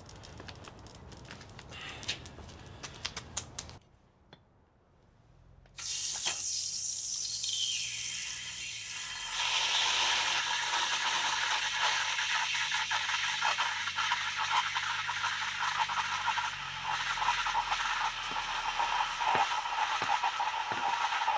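Hot copper ingot sizzling in a pan of quench water: a steady hiss full of crackles that starts suddenly about six seconds in and gets louder around nine seconds. Before it, a few faint clinks of the crucible and mold.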